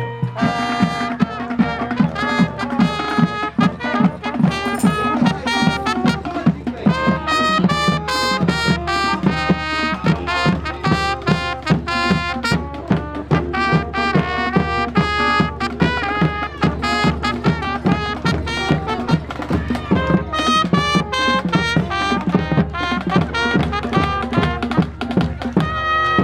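Instrumental music with a quick, steady beat.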